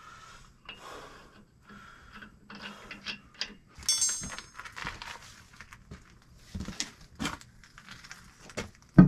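Metal hardware and hand tools clinking and scraping on a truck's wheel hub, in scattered short taps and rattles. There is a ringing metallic clink about four seconds in and a sharp thump at the very end.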